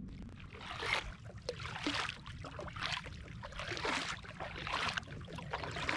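Double-bladed kayak paddle dipping into calm water stroke after stroke, each stroke a splash and trickle of water off the blade, about one a second, over a steady low rumble.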